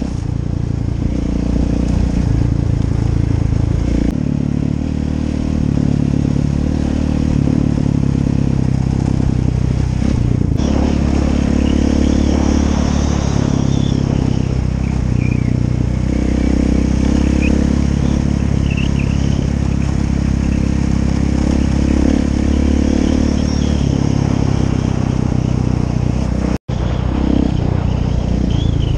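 KTM 690 Enduro R's single-cylinder four-stroke engine running steadily while the bike is ridden along a gravel road. The sound cuts out for a split second near the end.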